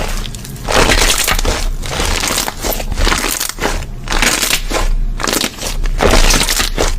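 Slime being squeezed and pressed by hand: a run of noisy, crackling squishes one after another at irregular intervals.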